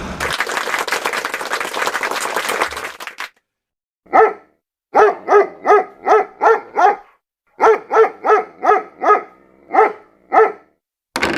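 A dog barking in quick runs of short, sharp barks, about three a second, sixteen in all. It is a stock sound effect. It follows a burst of crackly hiss that lasts about three seconds and cuts off.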